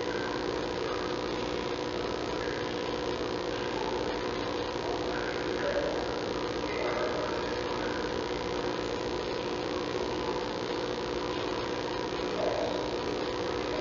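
Steady electrical hum with several steady tones over a constant hiss, unchanging throughout.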